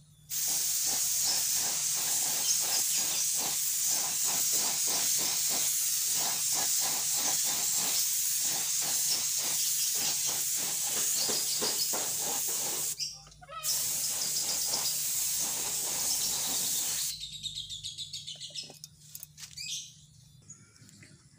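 Gravity-feed air spray gun hissing as it sprays a coat of epoxy primer: one long burst of about twelve seconds, a brief break, then about three seconds more before the trigger is released. Birds chirp faintly after the spraying stops.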